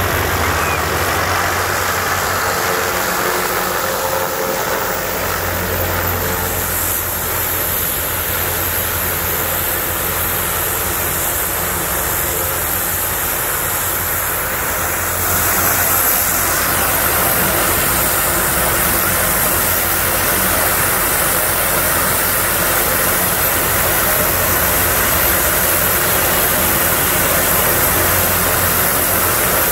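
Army Little Bird helicopter's turbine and rotor running as it sets down and then turns over on the ground, a steady engine sound with the rapid beat of the blades. It grows a little louder about halfway through.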